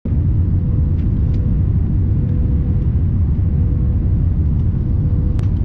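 Airliner cabin noise during the landing approach: a steady low rumble of jet engines and airflow with a constant faint hum, heard from a window seat with the flaps extended. A few light clicks come through about a second in and near the end.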